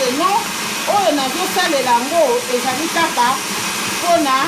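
A person's voice in long gliding tones, over a steady whirring noise.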